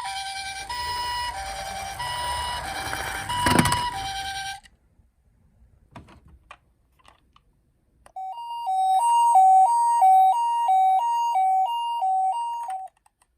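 Toy ambulances' electronic two-tone sirens, one after another. The first switches between a high and a low tone about every half second over a rolling rumble, with a sharp knock partway through. After a few seconds of quiet with faint clicks, a second toy ambulance sounds a cleaner two-tone that switches faster.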